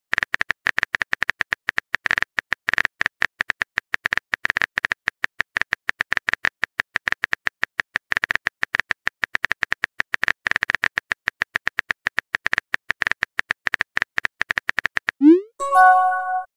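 Rapid keyboard-typing click sound effect of a texting-story chat animation, ticking away as a message is typed. Near the end, a short rising swoosh and a brief chime as the message is sent.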